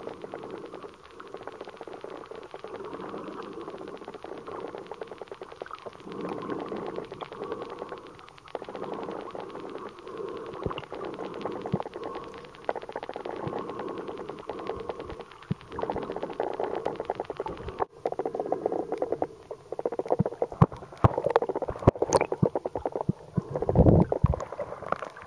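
Muffled underwater sound picked up by a submerged camera: a crackling, rushing wash of water noise that swells and fades every few seconds. In the last several seconds come a few sharp knocks and a strong low thud.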